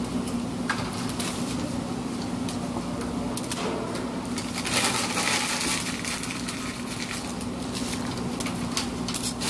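Close-up eating sounds: a person chewing and handling food, with scattered small clicks and a louder rustle about halfway through, over a steady low hum.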